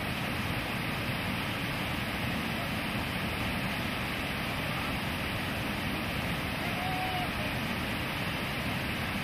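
Steady roar of river whitewater rapids: a big breaking wave and churning foam.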